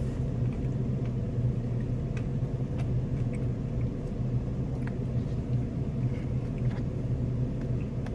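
Steady low rumble of an idling car, with a few faint small clicks over it.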